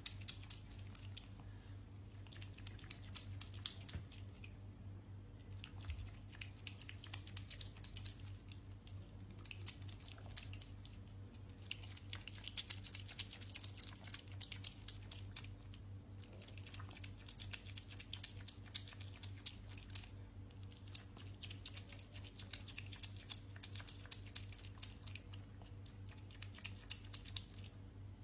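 An otter crunching dry kibble: rapid crisp crunches in bouts with short pauses between them, over a steady low hum.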